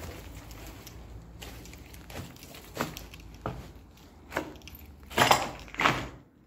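Footsteps crunching over loose rubble and broken plaster, irregular single steps with the two loudest crunches about five and six seconds in.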